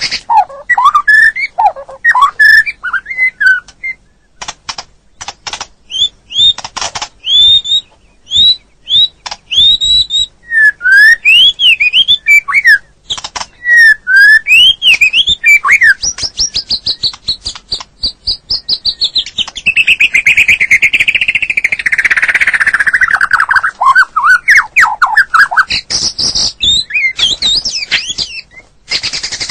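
White-rumped shama singing a loud, varied song: clear whistled notes gliding up and down, broken by rapid runs of sharp clicks. About halfway through comes a long, fast trill that slides down in pitch.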